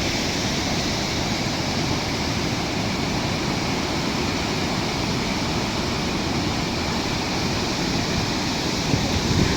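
Steady rushing roar of Sahasrakund Waterfall, its water dropping from a height of about 150 feet.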